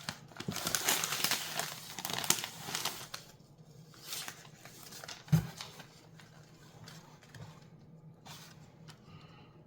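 Packing material crinkling and rustling as a wrapped package is handled and opened, dense for the first three seconds, then only a few light rustles, with a single soft thump about five seconds in.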